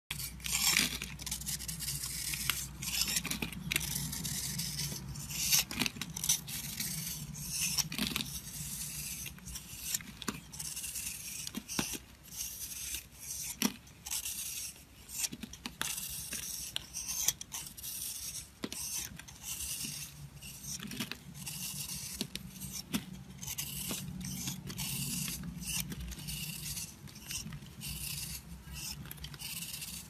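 Small knife carving thin curls off a block of dry, powdery soap: a quick run of crisp, crunchy scrapes, one stroke after another, as the soap shaves and crumbles.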